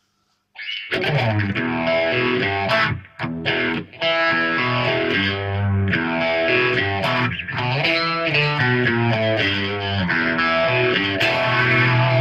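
Electric guitar, a 2011 Fender American Special, played through a Nux OD-3 overdrive with the drive turned up and a Behringer Vintage Phaser into a Hiwatt Maxiwatt 50 amp: distorted, phased, sustained lead phrases starting about half a second in, with a brief break near three seconds.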